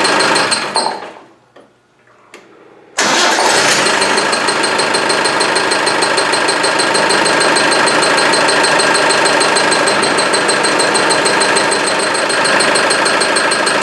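Land Rover 300Tdi four-cylinder turbodiesel engine running, shut off about a second in and winding down, then restarted about three seconds in and running steadily again. It carries a constant high chirping that comes only once the engine is warm, and whose cause the owner has not yet found.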